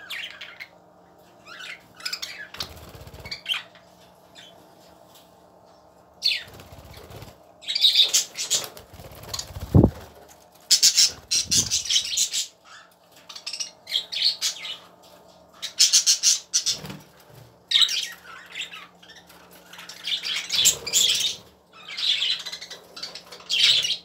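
A flock of budgerigars chattering and squawking in irregular bouts, with fluttering wingbeats as birds flap between perches. There is one low thump near the middle.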